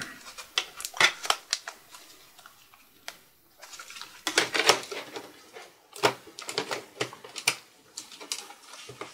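Irregular clusters of sharp clicks and taps from plastic and metal parts: a Lenovo ThinkPad X230 palm rest and touchpad bracket being handled and seated into their slots.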